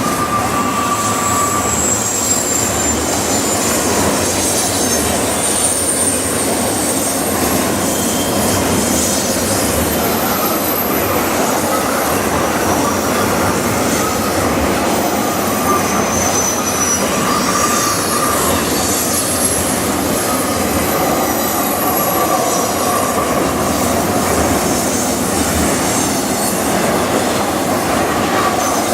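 Double-stack container train rolling past, with a steady rumble of wheels on rail and thin, high-pitched wheel squeals that come and go.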